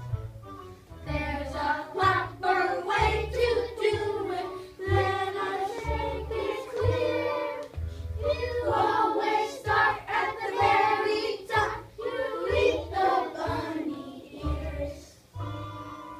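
A class of young children singing a song together in unison, with an instrumental accompaniment whose bass notes change in a steady pattern underneath.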